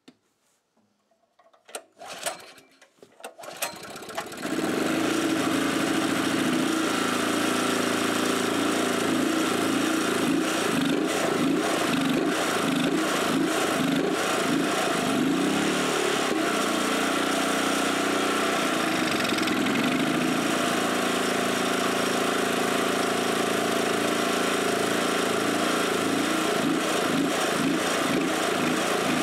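Portable generator's small engine starting: a few short cranking sounds, then it catches about four seconds in and runs steadily, its speed wavering up and down for a while. It does not run well on gasoline through the home-made intake adapter and air valve that replace its air filter.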